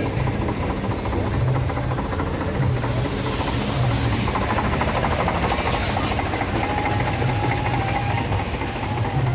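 Diesel tractor engines running close by with a steady low, pulsing throb. A faint steady high tone joins about two-thirds of the way in.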